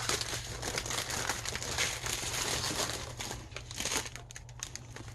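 Small plastic bags of diamond-painting drills crinkling and rustling as they are handled and sorted, a dense run of crackles.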